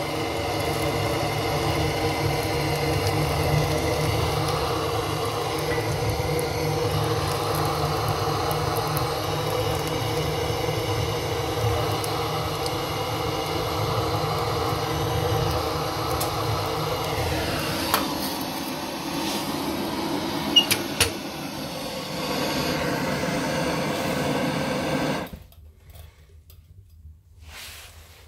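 A steady mechanical drone, with a few sharp clicks about 18 and 21 seconds in, cutting off abruptly near the end.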